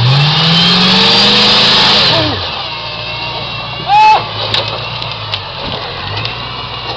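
Off-road buggy's high-powered engine revving hard, its pitch climbing for about two seconds under full throttle on a steep climb, then falling away as the buggy loses the hill and rolls over. A loud shout about four seconds in, followed by a few knocks while the engine keeps running lower.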